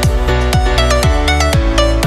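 Electronic dance music with a steady beat, a deep bass that drops in pitch on each beat, and a high synth melody.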